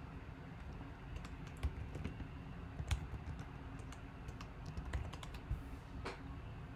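Computer keyboard typing: an irregular run of light key clicks, fairly faint.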